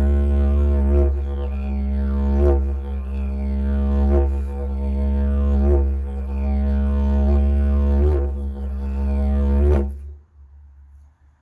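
Bamboo didgeridoo playing a low steady drone, with rhythmic accents and sweeping changes in its overtones about every second and a half. The drone stops about ten seconds in.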